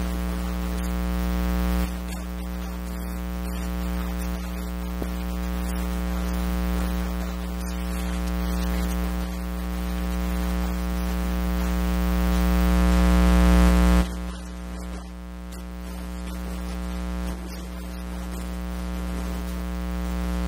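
Steady electrical mains hum and buzz with its overtones over a static hiss. It swells slowly and drops back abruptly several times, most sharply about two-thirds of the way through.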